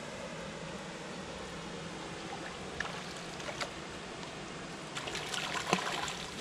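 A hooked trout splashing and thrashing at the water's surface as it is brought to a landing net. There are a few small splashes around three seconds in, then a longer bout of splashing near the end, over a steady background hiss.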